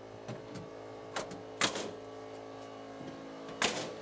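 Pneumatic coil nail gun firing nails through plywood sheathing into the cripple-wall studs: three loud sharp shots, the second half a second after the first and the third about two seconds later, with a couple of lighter knocks before them.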